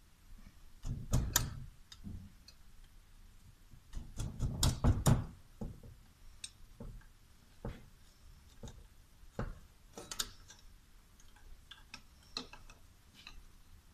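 Hand tools clicking and knocking on a Toyota Hilux D4D turbocharger as its actuator is worked free with a screwdriver and pliers. Scattered light metal clicks, with two louder clusters of knocks, about a second in and around four to five seconds in.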